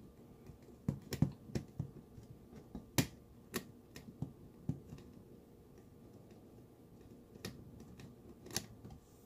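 Scattered light clicks and taps of a screwdriver and circuit board knocking against the sheet-metal case of a digital TV converter box as it is reassembled: a run of clicks in the first few seconds, then two more near the end.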